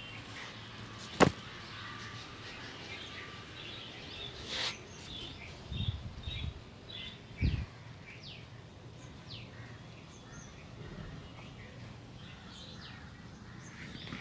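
Small birds chirping, with a run of short falling whistled notes around the middle, over a steady low background hum. A sharp click about a second in and a few low thumps around six to seven and a half seconds in stand out above the birds.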